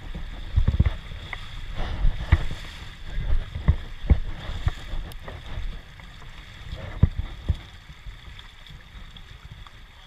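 Shallow creek water rushing, with irregular low thumps of wind buffeting the microphone and splashes as a person wades through the current. The thumps and splashes are busiest in the first half and die down near the end.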